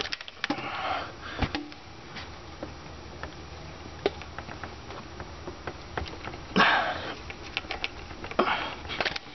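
Scattered clicks and short scraping rustles of hands working worn spark plug wires loose, twisting and pulling the rubber boots off the plugs and distributor cap. A few longer scraping bursts come about half a second in, near six and a half seconds and again near the end.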